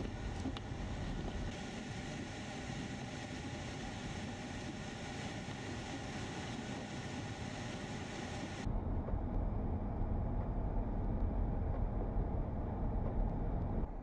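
Steady road noise from a car driving on a snow-covered highway: a continuous rush of tyres and wind. About two-thirds of the way through it changes abruptly to a louder, deeper rumble.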